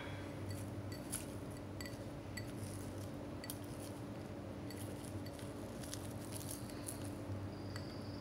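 Quiet room tone: a faint steady low hum with a scattering of faint, light clicks.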